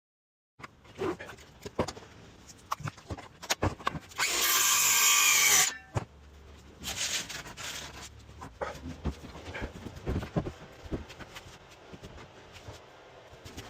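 Woodworking with hand and power tools: scattered knocks and clatter of wood and tools, with a power tool running loudly for about a second and a half near the middle and again, more quietly, for about a second shortly after.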